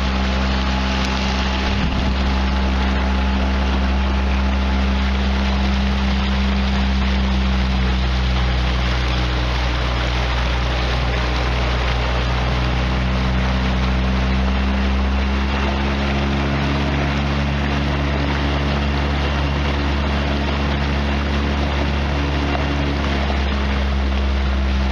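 Mercury 5 hp outboard motor on a kayak running steadily under way at about half throttle, its note shifting slightly a couple of times, over a steady hiss.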